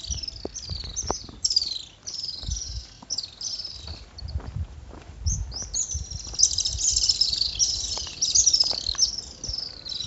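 Little swifts calling: many shrill, rapid twittering trills overlapping one another, growing busier about halfway through.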